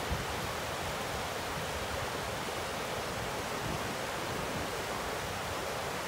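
Water rushing and splashing over rocks in a narrow channel, a steady even rush, with ocean surf behind it.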